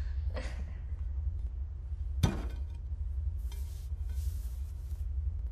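A single sharp clack of a dinner plate or tableware on a table about two seconds in, over a steady low room hum. It is followed by a soft rustle lasting about a second and a half.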